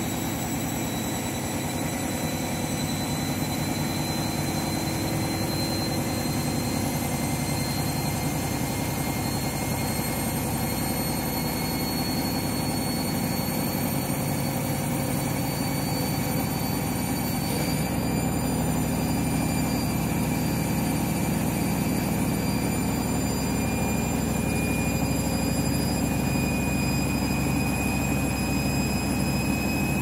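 Overloaded front-loading washing machine in its final spin: a steady motor whine over a low rumble from the drum, its pitch creeping slowly upward as the drum gathers speed, with a small step up about two-thirds of the way through.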